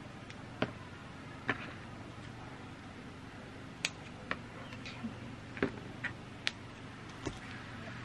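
Scattered light clicks and snips, about nine at irregular intervals, from scissors cutting small paper labels and small objects being handled on a desk. A faint steady low hum runs underneath.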